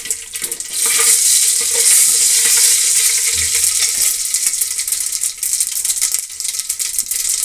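Mustard seeds spluttering and popping in hot oil in an aluminium pot: a dense crackle that grows louder about a second in and keeps going. This is the tempering, with the oil hot enough for the seeds to burst.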